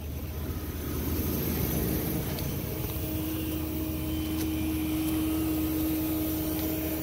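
12-volt macerator pump running steadily as it pumps camper waste-tank contents out through a hose, a continuous motor hum that grows a little louder about a second in, with a steady whine settling in near the middle.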